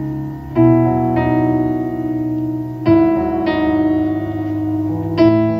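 Stage keyboard with a piano sound playing slow sustained chords, a new chord struck about half a second, three seconds and five seconds in.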